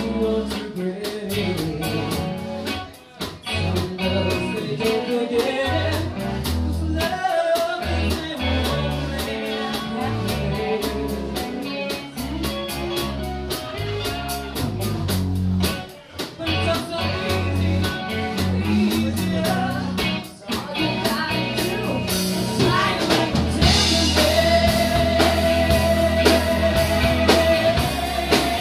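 Live band playing: female lead vocal over electric guitar, bass and drum kit. The band gets louder and brighter about two-thirds of the way through, with a long held sung note near the end.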